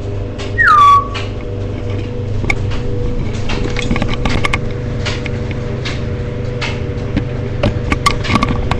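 Pet budgerigars: one loud falling chirp about half a second in, then scattered short chirps and scratchy clicks over a steady low hum.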